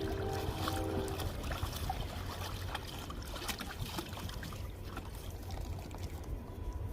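Pool water splashing and lapping as dogs swim, with small scattered splashes over a low rumble.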